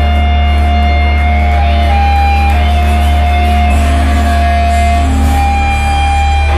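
Loud live band music: a steady low drone under sustained notes that step between a few pitches, with a wavering high tone above them.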